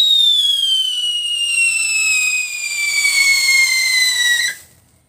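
Homemade Yakult-bottle scream whistle bomb shrieking with one loud whistle that slides steadily down in pitch, then cuts off suddenly about four and a half seconds in with no bang: the charge failed to go off, which the maker puts down to its inner fuse misfiring.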